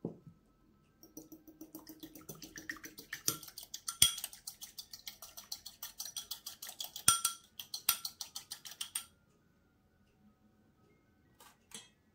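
A kitchen utensil working quickly against a dish, like a fork or whisk beating in a bowl: about six rapid scraping clinks a second, with two louder knocks against the dish. It stops about nine seconds in, followed by a couple of faint clicks.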